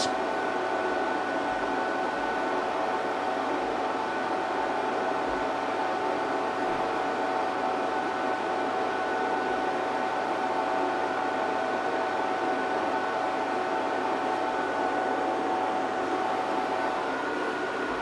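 Power inverter under heavy load from an electric kettle: a steady whir with a low hum and a couple of steady high whining tones. The highest whine drops out briefly near the end.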